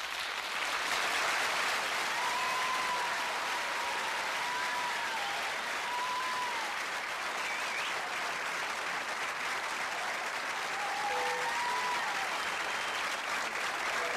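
Audience applauding steadily at the end of a song, with a few brief high pitched calls rising and falling over the clapping.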